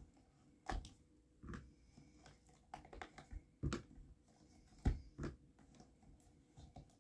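Hard cast-resin domino pieces clicking and knocking against each other and the work surface as they are handled: about eight light, irregular clicks.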